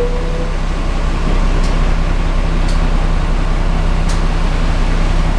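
Fiat 418 AC bus's diesel engine idling steadily, heard from inside the passenger cabin. A short single-pitch beep sounds at the very start, and there are a few faint ticks.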